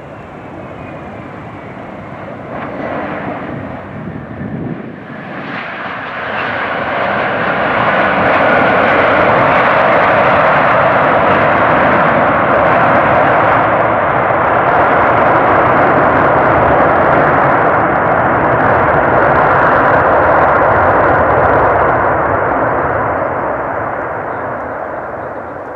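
Widebody twin-engine jet airliner's engines at takeoff power. The engine noise builds over a few seconds, holds loud, then fades near the end.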